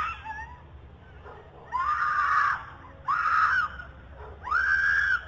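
A girl screaming three times, each scream under a second long and about a second apart, in what appears to be an abduction.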